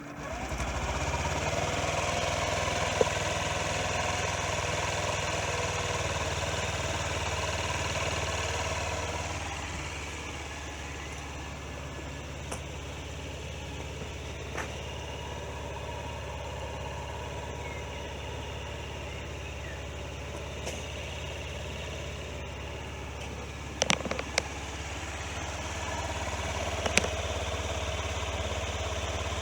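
Honda Zoomer NPS50's 49cc single-cylinder four-stroke engine starting up and idling steadily on its fresh oil. The idle is faster at first, drops to a lower, quieter idle about nine seconds in, and rises again near the end, with a few sharp clicks shortly before.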